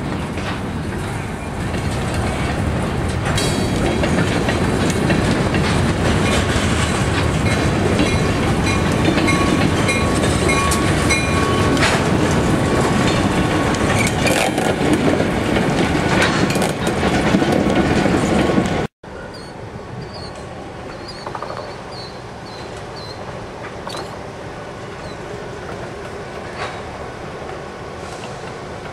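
Freight train of covered hopper cars and a diesel switcher passing close by, wheels clicking over the rail joints over a heavy rumble. About two-thirds of the way through it cuts off suddenly and the train is heard more faintly, rolling along farther away.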